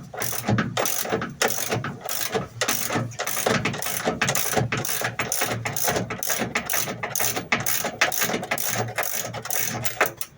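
Ratchet wrench with a 10 mm socket clicking rapidly and continuously as it unscrews the washing machine motor's mounting bolts; the clicking stops at the very end.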